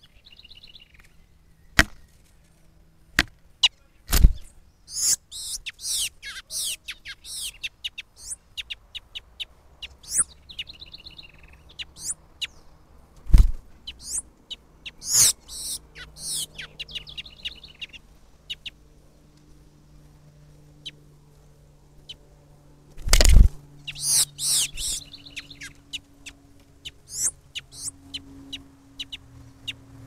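A Brazilian tanager knocking against a trail camera while attacking its own reflection: a handful of sharp, loud knocks, widely spaced. Between them come bunches of short, high bird chirps and calls.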